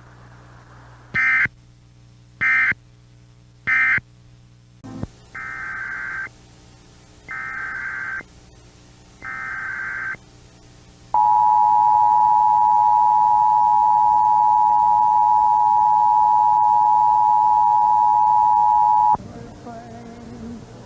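Emergency Alert System signalling. First come three short data bursts of the kind that end a message, then three longer data-burst headers, each about a second long. Then the two-tone attention signal sounds steady for about eight seconds.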